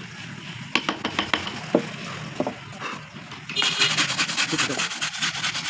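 A hand rubbing and brushing rapidly across a freshly carved wooden relief panel to sweep off dust and chips: a dense, fast scratchy swishing that starts about three and a half seconds in, after a few light knocks.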